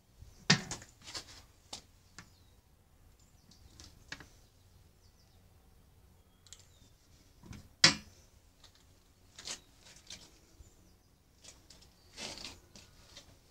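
Scattered handling clicks, knocks and rustles, the sharpest a single knock about eight seconds in, with a longer scrape or rustle near the end; no steady running sound under them.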